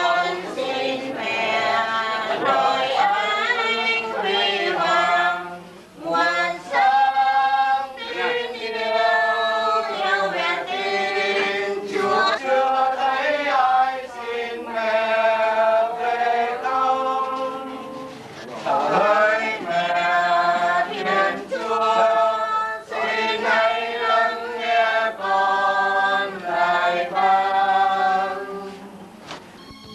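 A choir singing a slow hymn, several voices together, with brief pauses between phrases about six and eighteen seconds in.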